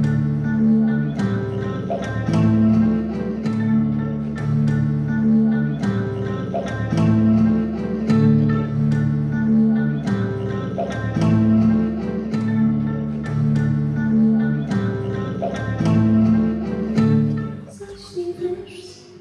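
Guitar music: plucked notes over a repeating pattern of low bass notes that changes chord every second or two, stopping about 18 seconds in.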